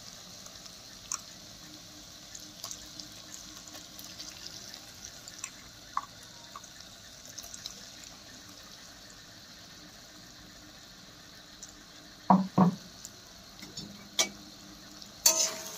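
Onions and ginger-garlic paste frying in mustard oil in a kadai: a steady sizzle with scattered small pops. Two sharp knocks come a little after twelve seconds in, and another near the end.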